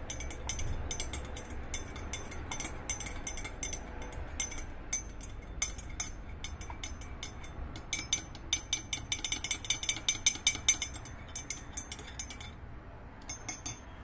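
Rapid light clinks of tableware, thickest a little past the middle and stopping shortly before the end, over a faint low hum.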